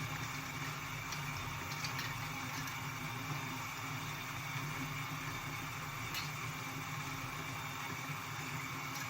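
Steady low hum under an even hiss, with a few faint light clicks.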